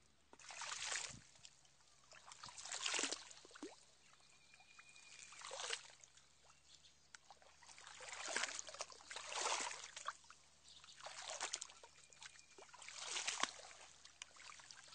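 Shallow water sloshing and splashing in repeated swells, one every second or two, from wading and a hand dip net being swept through flooded grass.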